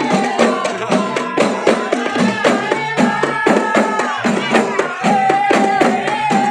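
Terbangan ensemble of large hand-held frame drums (rebana) beaten in a steady rhythm of about four strokes a second, with voices chanting a long-held dikir melody over the drumming.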